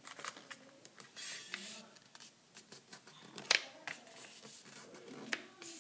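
A sheet of origami paper being handled and folded: light rustling and scattered crisp clicks, a brief rustle about a second in and one sharper snap about three and a half seconds in.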